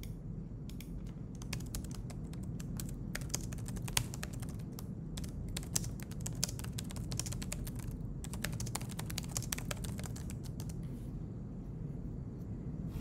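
Typing on a computer keyboard: a fast, uneven run of key clicks that stops about two seconds before the end, over a low steady hum.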